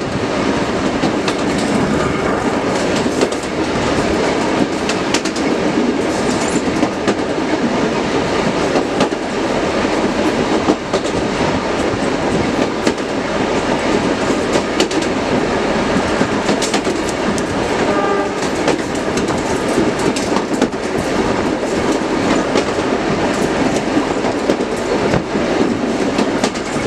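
Locomotive running along the track, heard from the side of the moving engine: a steady rumble and rush with frequent clacks of the wheels over the rail.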